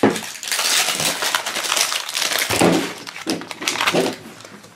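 Crinkly plastic wrapper being crumpled and peeled off a small toy package, a dense run of quick crackles.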